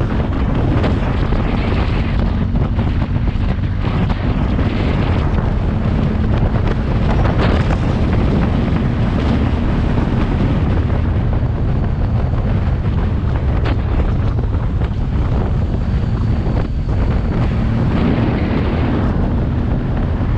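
Wind buffeting the microphone of a motorcycle on the move, over the steady drone of its engine.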